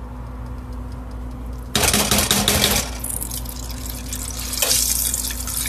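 Hot cooking grease sizzling and popping, coming in suddenly about two seconds in as a dense crackling hiss that eases a little but keeps on.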